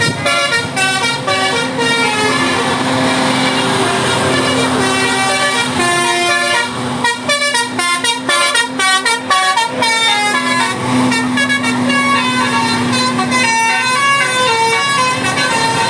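Buses' multi-note 'basuri' telolet air horns playing tunes. Several horns overlap, with notes stepping quickly up and down over a steady low hum.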